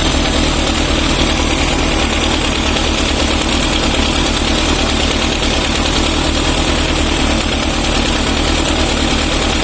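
Yamaha FZR1000 EXUP's inline four-cylinder engine idling steadily on a test run after its leaking carburetor was sealed with epoxy.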